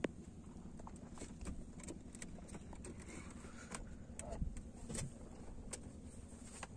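Scattered small knocks and clicks of things being handled in a small wooden boat, over a steady low hum.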